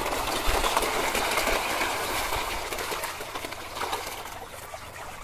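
A dense crowd of koi churning and splashing at the water's surface in a feeding frenzy: a rushing, crackling splash that is loudest in the first couple of seconds and then slowly fades.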